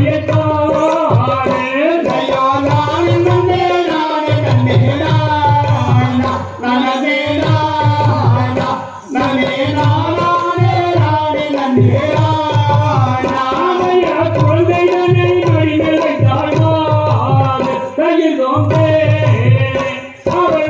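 Tamil Valli Kummi folk song: voices singing a melody over a steady, repeating drum beat, with brief pauses between sung phrases.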